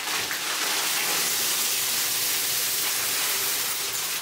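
Water running hard and steadily from a bathtub tap, filling the tub for an ice bath.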